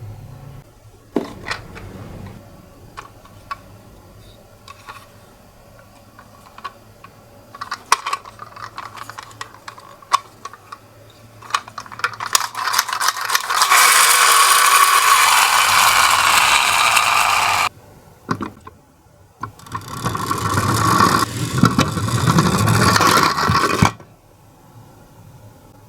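Toy ambulance's plastic wheels rolling and rattling down a slope, in two loud runs of about four seconds each: one about halfway in and one near the end. Before them come scattered small clicks and knocks as the toy is handled.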